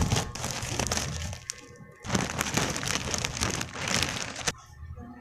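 Gift wrapping paper being torn and crinkled off a present by hand, in two bouts of crackling, the second and longer one ending about four and a half seconds in.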